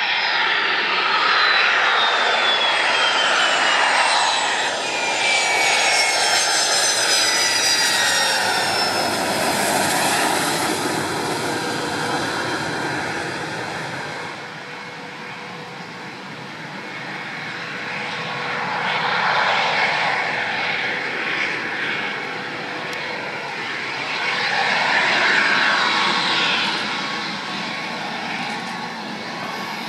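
Saab JAS 39 Gripen's Volvo RM12 turbofan on the landing rollout and taxi: a loud jet rush with a high whine that falls steadily in pitch over the first eight or nine seconds. After that the engine runs at low taxi power, fading and then swelling twice as the fighter turns and taxis back past.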